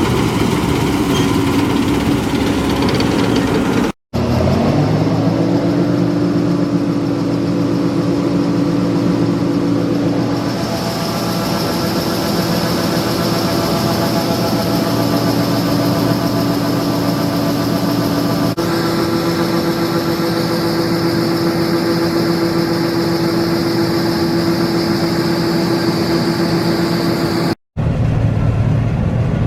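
Combine harvester running steadily in soybeans, a continuous engine drone with a steady whine. It breaks off briefly twice, and just after the first break the pitch rises over about a second before settling.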